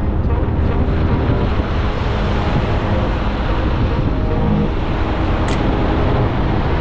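Vehicle driving at speed on a wet highway: a steady rush of wind over the microphone with road and tyre noise underneath.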